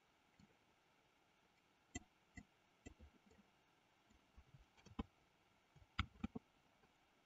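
Near silence broken by faint, irregular clicks of a computer mouse, about a dozen in all. The loudest come around five and six seconds in.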